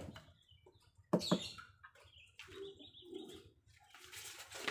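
Two quick knocks about a second in, a metal scraper set down on a wooden slab, followed by a chicken clucking a few times.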